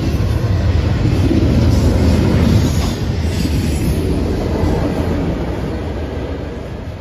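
Freight train of double-stack container cars and an autorack rolling past at close range, steel wheels running on the rails. The noise fades in the last couple of seconds as the end of the train goes by.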